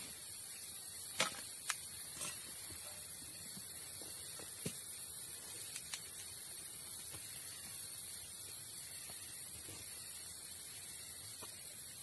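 A steady high-pitched chorus of forest insects, with a few light clicks and rustles of hammock gear being handled, the sharpest a little over a second in.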